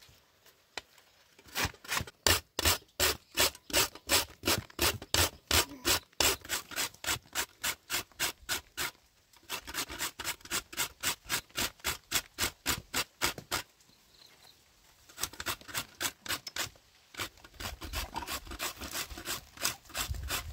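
A peeled root being rasped back and forth on a punched sheet-metal hand grater, about three to four strokes a second. The strokes come in runs with short pauses between them.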